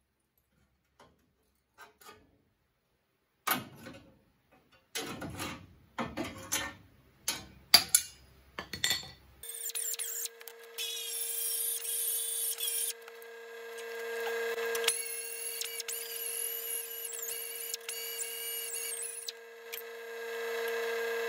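A few knocks and clatter, then a small cut-off wheel spins up with a steady high whine and cuts through the rusted sheet steel of a radiator support, adding a hissing grind while the wheel bites.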